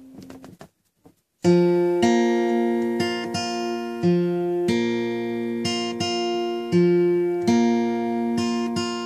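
Acoustic guitar strumming an intro of chords, a strum every second or so, each one ringing on as the chords change. It starts about a second and a half in, after a brief quiet moment with a few faint handling sounds.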